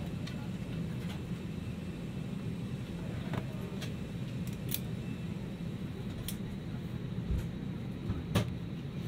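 Steady low hum of an Airbus A320's cabin air-conditioning, with the engines not yet started. Scattered light clicks and knocks run through it, with a louder thump near the end.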